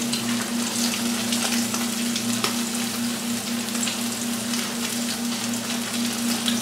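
Almond-meal-breaded trout fillet shallow-frying in hot oil in a skillet: steady sizzling with scattered small crackles and pops, over a steady low hum.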